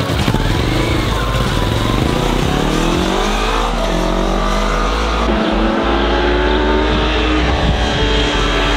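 Kawasaki sport motorcycle accelerating away, its engine pitch climbing and then stepping through gear changes several times. A low wind rumble runs under it.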